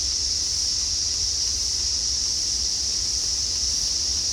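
Steady high-pitched drone of insects, with a low rumble of wind on the microphone underneath.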